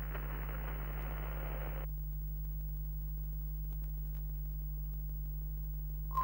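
Steady low electrical hum, with a burst of static hiss lasting about two seconds at the start and a short blip right at the end, in the manner of an old television test card.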